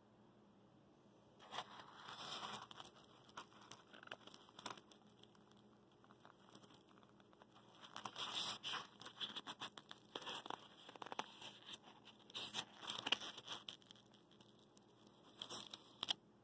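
Hands rustling and pulling at the fluffy fibre insulation and foam packing around a Stirling engine in a foam cooler: irregular bursts of crinkling and scraping with small clicks, starting about a second and a half in, with a lull midway.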